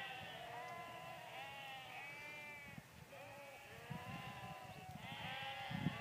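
A flock of sheep bleating, many calls overlapping one another continuously, with a few low rumbles.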